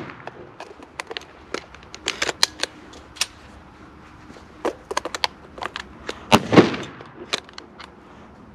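Scattered sharp clicks and crackles of dry brush and twigs close to the microphone, as the hunter shifts in the brush blind, with a louder knock and rustle about six and a half seconds in.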